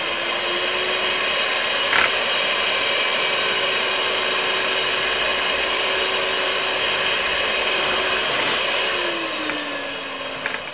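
Electric hand mixer running steadily, its beaters whisking eggs and milk in a glass measuring jug. There is one sharp click about two seconds in. Near the end the motor's pitch falls as it slows down.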